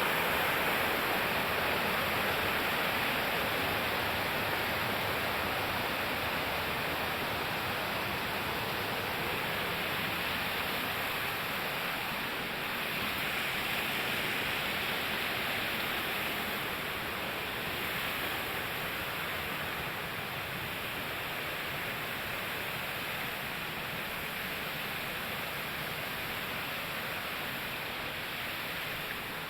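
Waterfall water rushing in a steady, even roar that slowly fades over the half-minute.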